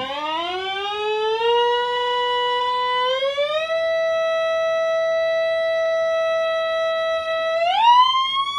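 Square-wave output of a 1978 Heathkit ET-3100 function generator played through a small speaker: a buzzy audio tone that glides up in pitch over the first three seconds, steps higher and holds steady, then rises again near the end as the frequency is turned up. The speaker also calls it a "lovely sounding square wave".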